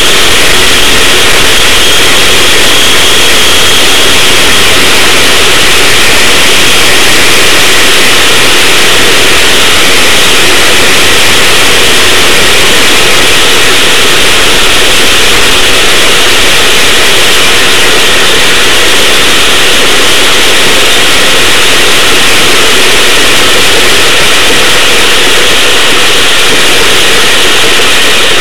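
Go-kart engine running steadily as the kart laps a dirt track, picked up by the kart's onboard camera so loud that the sound is overloaded and distorted into an even wash of noise with little change.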